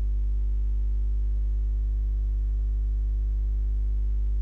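Steady low electrical mains hum, a constant drone with a stack of overtones and nothing else heard over it.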